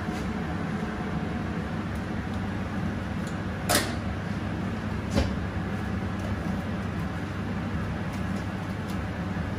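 Two sharp clicks about a second and a half apart as a sealed bag of bean goulash is opened and squeezed out into a small saucepan, over a steady low hum.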